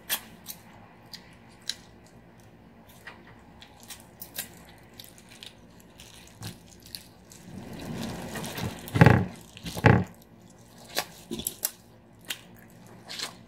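Crab shell being cracked and picked apart by plastic-gloved hands, with scattered sharp clicks, along with close-up chewing and biting. The loudest crunches come about nine and ten seconds in.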